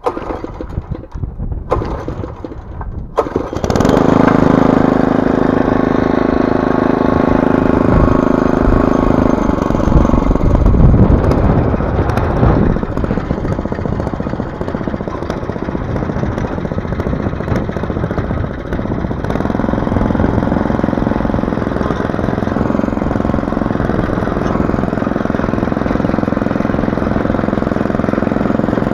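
Walk-behind petrol tiller set up as a sugar-beet row hoe: its small petrol engine is started, catches about four seconds in, and then runs steadily as the machine hoes between the rows.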